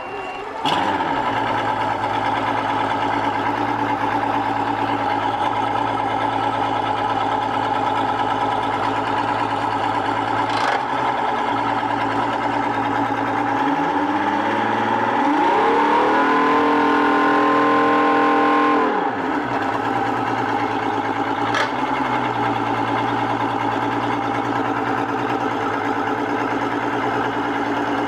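2006 Mercury 135 hp V6 two-stroke outboard starting about a second in and running at idle, revved up around the middle and held a few seconds at higher speed, then dropping back to idle before it cuts off at the end. It is run out of the water on flushing water.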